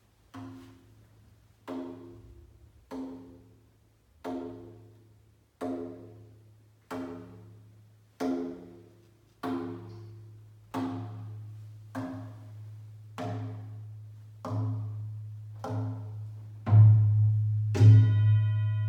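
Large gong struck steadily with a soft mallet about once every second and a half, each stroke ringing out over a low hum that builds and grows much louder near the end. A singing bowl is struck just before the end.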